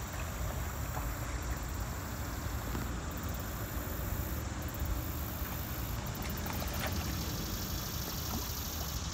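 A steady low rumble, with faint scattered splashes from a large hooked fish thrashing at the water's surface.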